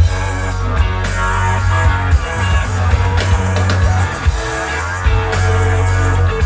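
Loud live band music played over a concert PA and heard from the crowd: a heavy, sustained bass line, a drum kit beating steadily, and guitar and synth lines, with one part gliding in pitch midway.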